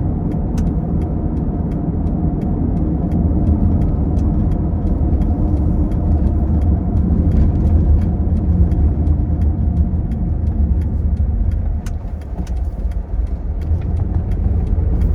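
Steady road and engine rumble of a car heard from inside the cabin while driving, dipping slightly in loudness for a moment near the end.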